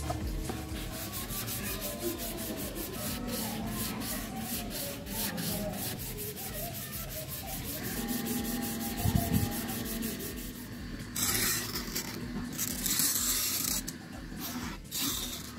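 Rapid back-and-forth rubbing strokes of sanding on a PVC sheet, with a harsher hiss for a couple of seconds past the middle.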